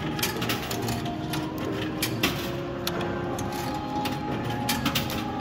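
Quarters fed one at a time into a Royal Vendors soda machine's coin slot, each dropping into the coin mechanism with a sharp click, several clicks a second or so apart over steady background noise.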